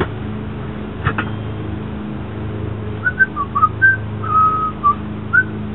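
A person whistling a short run of notes, a few quick slides and one held note, over a steady low hum. A single metal clink, tire iron against the split-ring rim, comes about a second in.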